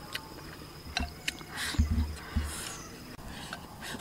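Eating sounds: wooden chopsticks clicking and scraping against a rice bowl, with chewing and a few soft low knocks near the middle.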